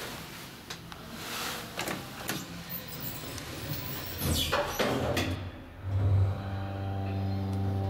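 1978 KONE hydraulic elevator doors sliding shut, a loud sweep between about four and five seconds in. About a second later the hydraulic pump motor starts with a steady hum as the car begins to move.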